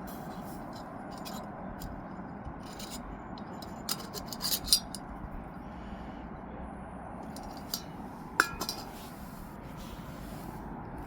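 Light metal clinks and taps from handling small camping cookware: a cluster about four seconds in, then two sharper clinks near eight seconds, the last ringing briefly, over a steady rushing background.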